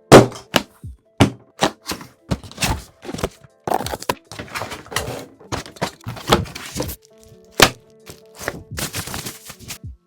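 Background music with a series of irregular sharp clacks and thuds, roughly one or two a second. The loudest hits come at the start and about two-thirds of the way through.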